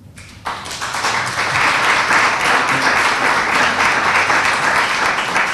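Audience applauding: the clapping starts about half a second in, swells within a second and then holds steady.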